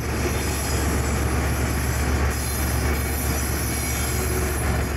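ALCO diesel switcher locomotive running as it hauls a string of autorack freight cars past, a steady low engine drone with the rolling noise of the train.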